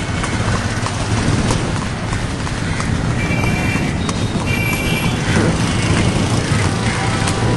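Steady engine and road rumble of a moving vehicle in city traffic, with two brief high tones around the middle.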